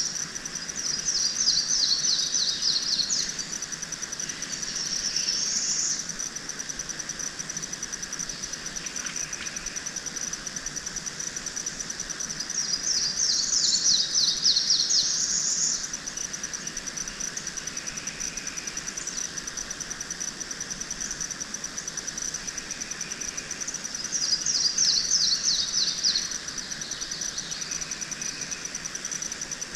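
Steady high-pitched insect trill, with a bird singing a quick run of repeated high notes three times, roughly every ten to twelve seconds.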